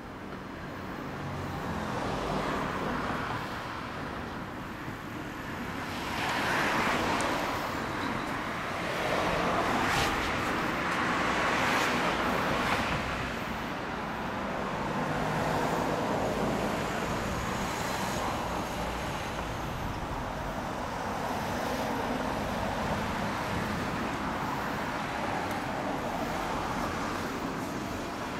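Honda Hornet 250's inline-four engine running steadily through a RealizeRacing aftermarket exhaust, mixed with road traffic that swells and fades several times, loudest around the middle.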